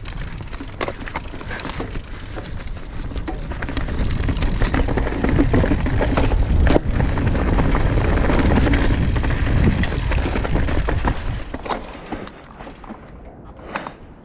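Mountain bike riding down a rocky trail: tyres rumbling and crunching over rock, with many rattles and knocks from the bike. It grows louder a few seconds in and eases off near the end as the bike slows.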